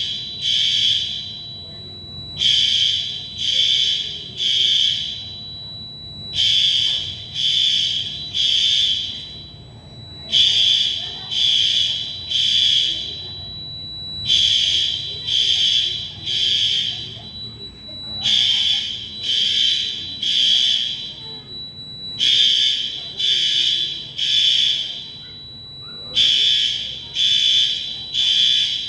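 Building fire alarm sounding the temporal-three evacuation pattern: three loud beeps, a pause of about a second and a half, then again, a group about every four seconds. A thin steady high tone runs underneath.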